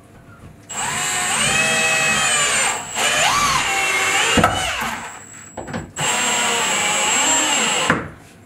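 Power drill driving deck screws through a wooden 1x4 into wall studs, in three runs of a couple of seconds each. The motor's whine shifts in pitch under load as each screw drives in.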